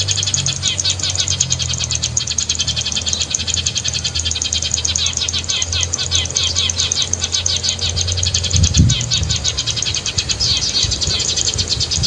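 Eurasian tree sparrow chirping, dense and rapid without a break, played from an MP3 player as a lure call, over a steady low hum. A low thump comes about nine seconds in.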